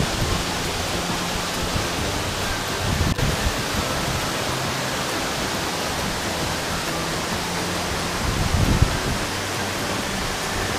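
Tall waterfall falling into its plunge pool, a steady, even rush of water, with the stream running over rocks close by.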